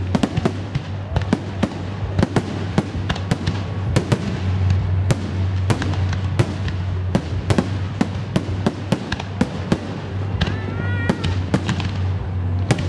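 Fireworks display: shells and crackers bursting in quick, sharp bangs, several a second, with a steady low hum underneath.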